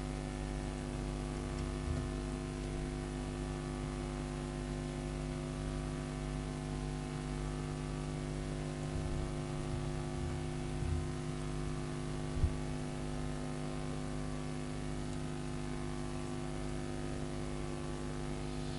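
Steady electrical mains hum with a faint hiss, from the recording's audio chain. A single brief knock about twelve seconds in.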